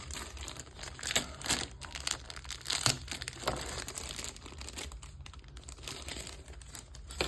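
Crinkling and rustling of plastic, with scattered small clicks, as small model-kit parts and their packaging are handled.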